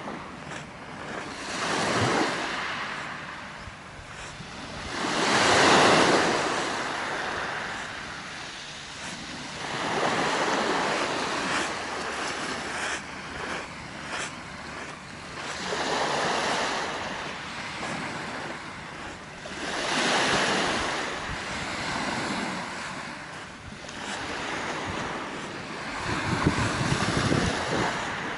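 Small sea waves breaking and washing up a pebbly shore, swelling and fading every few seconds.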